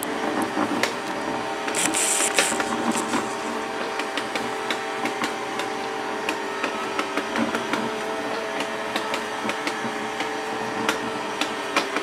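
Ooouse budget robot vacuum running in its faster, louder mode on a hardwood floor: a steady motor whir with a hum, and frequent small clicks and taps as it moves. A brief brighter hiss comes about two seconds in.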